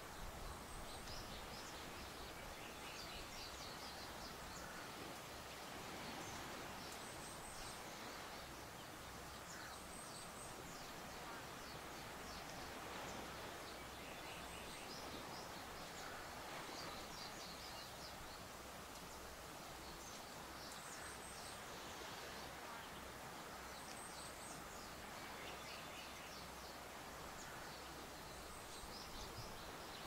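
Breeze rustling steadily through tall grass, with faint, high-pitched bird chirps in short quick runs every few seconds.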